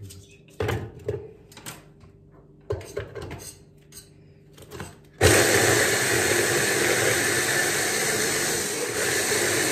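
Braun hand blender's chopper attachment mincing onion chunks: the motor starts suddenly about five seconds in and runs steadily at full speed. Before it, a series of knocks as the onion pieces are dropped into the plastic chopper bowl and the motor unit is fitted on.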